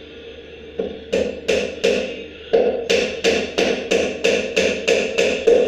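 Hammer striking the solid narra wood table frame: a quick run of over a dozen blows, about three a second, starting about a second in with a short break near two seconds, each with a short wooden ring.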